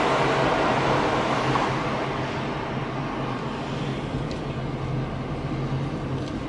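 Road noise from inside a moving car: steady tyre and traffic rumble over a low engine hum, louder at first beneath an overpass and easing off about two seconds in as the car comes out into the open.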